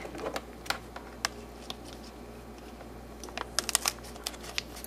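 Light scattered clicks and taps of hands opening a Lego minifigure blind bag and handling its small plastic pieces, sparse at first and busier near the end.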